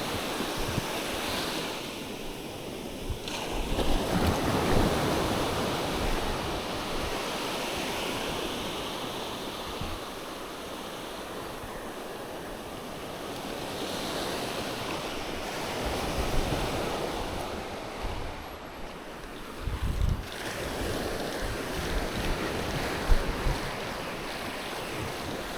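Sea waves washing and surging, swelling and easing every several seconds, with gusts of wind rumbling on the microphone.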